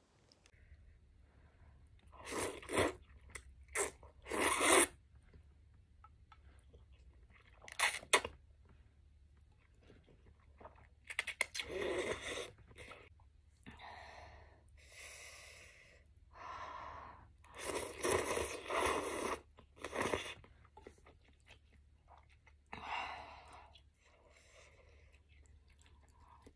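Close-up eating sounds: rice noodles being slurped and chewed, in a string of separate bursts with pauses between them. A faint steady low hum lies underneath.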